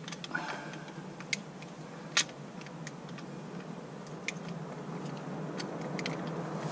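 Light, scattered clicks of an Allen key turning a small screw out of the cosmetic cover on an outboard's lower-unit gear case, with one louder click about two seconds in.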